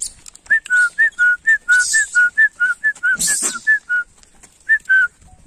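A person whistling a quick two-note pattern, alternating a higher and a lower note about four times a second, breaking off for a moment and then adding two more notes. Two brief hissing rustles sound in the middle.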